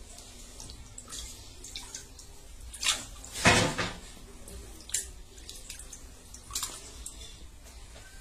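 Live eels writhing in shallow water, with a few short splashes and drips. The loudest splash comes about three and a half seconds in.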